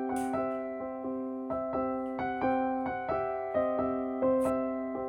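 Background piano music: a gentle melody of evenly paced electric-piano notes over a held low note.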